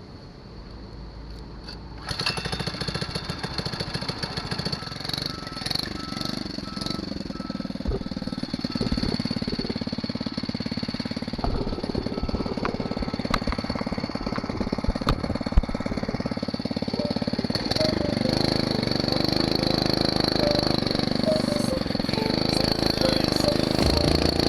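Small single-cylinder four-stroke engine of a Phatmoto motorised bicycle kicking into life about two seconds in, then running with a fast, even putter. It grows louder and fuller near the end.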